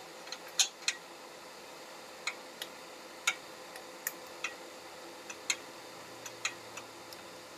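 Ratchet wrench clicking as it is worked in short strokes: sharp metallic clicks, singly or in pairs, every half second to a second, while a bolt is loosened under the engine during an oil change.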